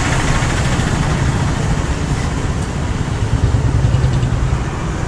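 Steady low rumble with an even hiss above it, background noise like road traffic.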